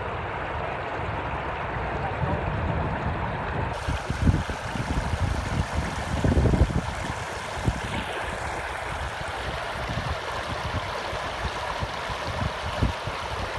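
Shallow river rapids rushing and gurgling over a rock ledge, with occasional low thumps and rumbles.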